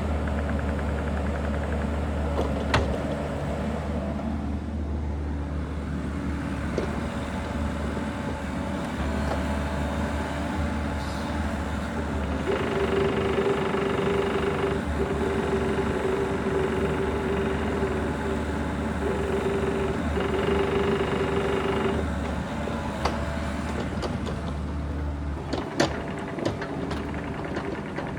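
Bobcat E42 mini excavator's diesel engine running steadily. From about twelve to twenty-two seconds in a high, steady whine joins in several stretches, the hydraulics working under load, and a couple of sharp knocks stand out near the start and near the end.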